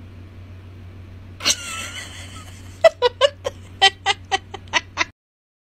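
Pet prairie dog giving one squeal, then a quick run of about ten short, sharp chirps, roughly four a second, that cut off suddenly near the end.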